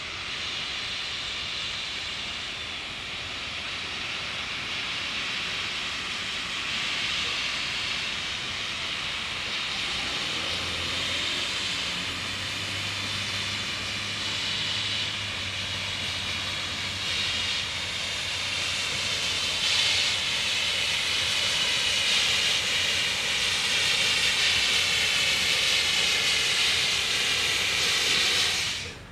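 Beyer-Garratt steam locomotive 6029, of the NSWGR AD60 class, giving off a loud, steady hiss of escaping steam as it moves slowly forward. The hiss grows louder toward the end and cuts off suddenly. A low steady hum joins in for a few seconds about a third of the way through.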